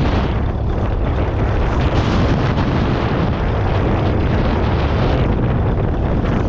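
1951 Ferguson TED20 tractor's 2.1-litre four-cylinder petrol/TVO engine running steadily, with wind buffeting the microphone.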